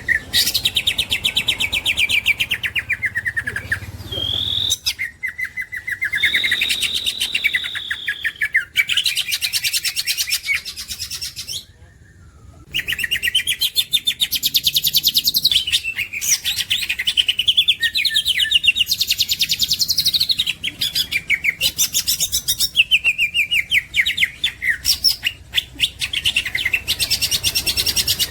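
Cucak ijo (greater green leafbird) singing long, rapid chattering phrases of quick notes and sweeping whistles, pausing briefly about twelve seconds in.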